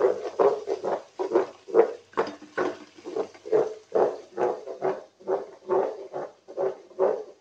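Wooden spatula scraping and stirring thick curry paste around a pot, in quick regular strokes about two or three times a second. The paste is being fried until the oil separates.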